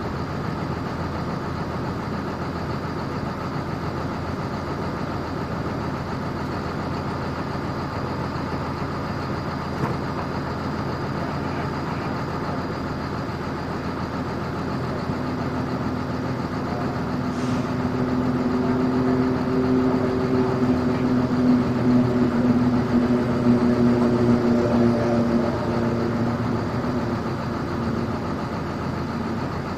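A heavy vehicle's engine running steadily, heard from on board. About halfway through it grows louder with a stronger humming tone for around ten seconds, then eases back.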